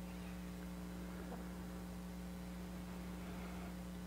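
Faint, steady electrical hum: one low tone with fainter overtones, holding level throughout.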